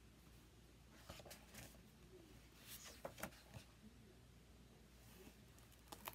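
Faint handling sounds of a thick photo book: short paper rustles and light taps and scrapes scattered through, the loudest just before the end as its pages are lifted.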